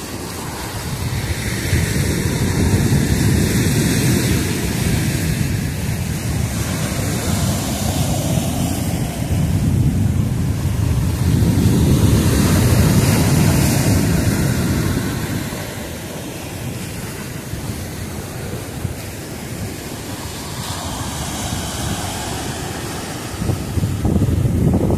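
Rough sea surf breaking and washing over a concrete pier, with wind buffeting the microphone. The noise swells and eases in long surges, loudest a few seconds in and again in the middle.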